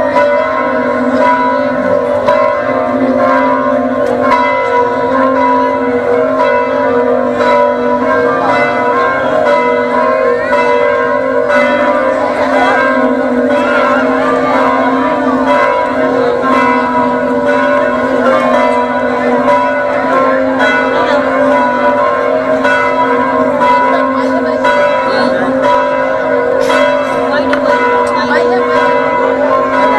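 Church bells ringing continuously, several bells sounding together in a steady, overlapping peal.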